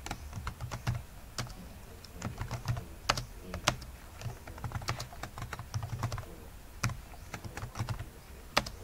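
Computer keyboard being typed on: irregular keystroke clicks in short runs, with brief pauses between them.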